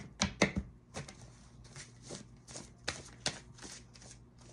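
A deck of tarot cards being shuffled by hand: a run of sharp, irregular card slaps and clicks, the loudest in the first half second, then softer ones every few tenths of a second.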